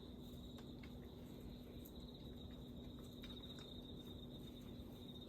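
Crickets trilling steadily at night in one continuous high, fine-pulsed trill, with a faint low hum beneath it.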